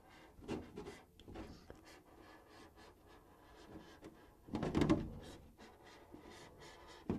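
Faint scratching of a hand scoring tool drawn slowly along a clear polycarbonate RC truck body shell, with small ticks as the tip catches. About two-thirds of the way through there is a louder rustle of the plastic shell being handled.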